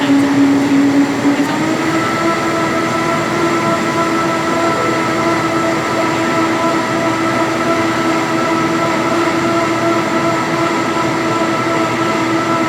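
Electric rail car running, its motors giving a steady whine over a rumble. The whine steps up in pitch about a second and a half in, as the car gathers speed, then holds.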